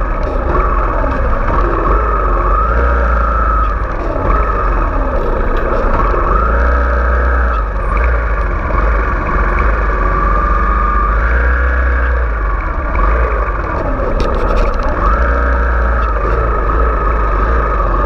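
Kawasaki Ninja 250 FI's parallel-twin engine running in slow traffic, its pitch gliding up and down every second or two as it revs up and eases off, over a steady low rumble.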